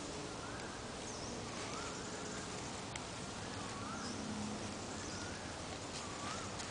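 A bird calling in woodland: a short wavering whistle repeated about once a second, over a steady background hiss.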